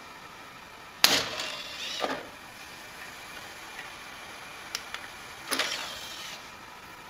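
Knocks and clicks from a desktop computer's CD drive tray: a sharp knock about a second in and another about five and a half seconds in, with two light clicks of the eject button just before the second.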